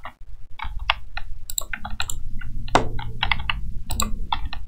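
Computer keyboard keys and mouse buttons clicking in quick, irregular succession as shortcuts are pressed.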